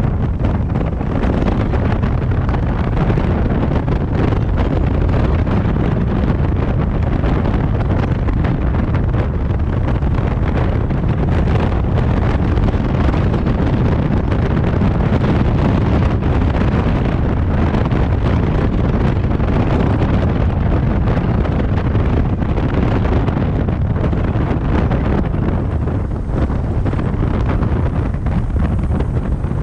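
Steady wind buffeting the microphone of a moving camera, mixed with road and traffic noise.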